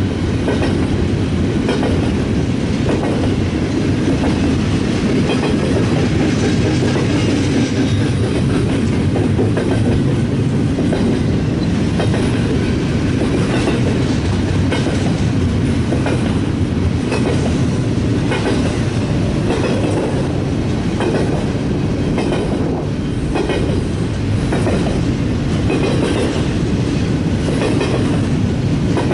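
BNSF freight train rolling past at a steady speed, its wheels clacking over the rail joints with a continuous rumble.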